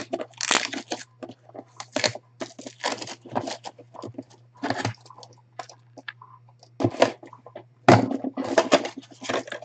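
Clear plastic shrink wrap crinkling and tearing as it is peeled off a small cardboard box, in irregular crackling bursts.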